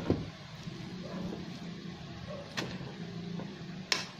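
Cooked glutinous rice being scooped into a pan of simmering coconut milk and sugar, with a few sharp taps against the pan: one at the start, one about two and a half seconds in, one near the end. A steady low hum runs underneath.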